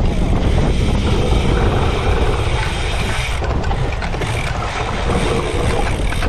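Cyclocross bike being raced over rough ground: a steady rumble of wind buffeting the microphone, with continuous rattling from the bike's chain and frame.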